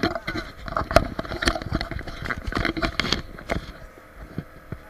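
Irregular knocks, thuds and splashes of an inflatable towable ride bouncing over the water at speed, easing off after about three and a half seconds.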